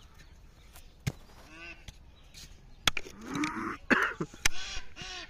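A cow mooing about three seconds in, over ducks quacking in short runs of repeated calls. Several sharp clicks or knocks punctuate it and are the loudest sounds.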